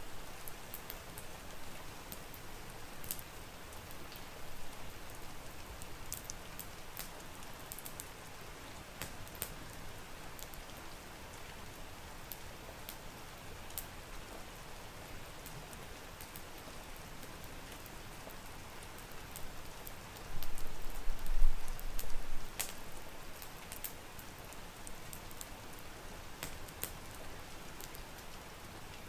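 Steady rain falling, with scattered sharp ticks of drops or crackles throughout. About two-thirds of the way through, a louder low rumble swells for about two seconds.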